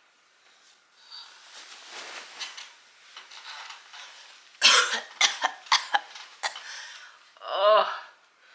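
A person with a cold coughing: soft breathy noise at first, then a sudden fit of several hard coughs about halfway through, and a brief vocal sound that wavers in pitch near the end.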